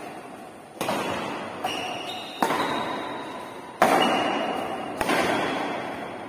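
Badminton rally: racket strings hitting a shuttlecock about five times, roughly a second apart. Each sharp smack rings on in the echo of a large bare hall.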